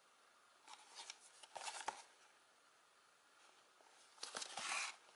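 Hands turning a small cardboard box, its sides rubbing and scraping against the fingers in two short bouts: about a second in, and again near the end.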